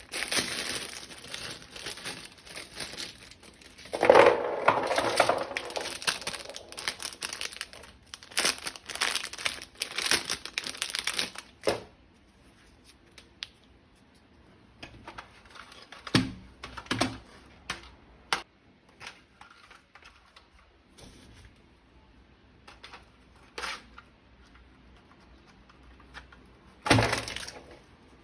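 Plastic packaging crinkling and tearing as a toy is unwrapped, densest in the first dozen seconds. After that come scattered separate clicks and knocks, with a louder knock near the end.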